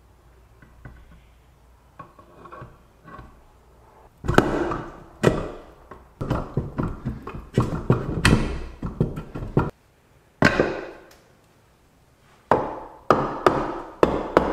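Knocks and clunks of the aluminium crankcase halves of a Yamaha XT225 engine being fitted and seated together, some of them ringing. Quiet for the first few seconds, then a run of knocks, a pause, and a quicker run of knocks near the end.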